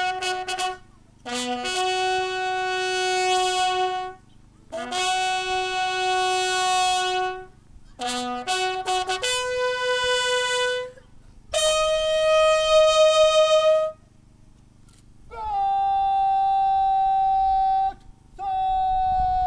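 Bugles sounding a ceremonial call at a military salute: long held notes separated by short pauses, with quick runs of short notes about one and eight seconds in.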